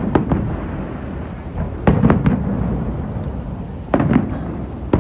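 Fireworks shells bursting overhead: three clusters of two or three sharp booms, about two seconds apart, over a continuous rumbling of echoing explosions.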